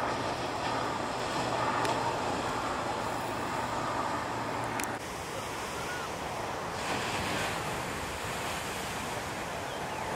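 Heavy shore-break waves breaking and washing up the beach: a continuous rushing surf noise that drops and changes abruptly about five seconds in.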